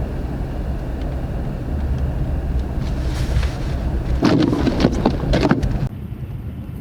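Car road noise from a vehicle driving on snowy roads: a steady low rumble. About four seconds in, a louder rushing, crackling noise lasts for over a second, then the sound drops suddenly near the end.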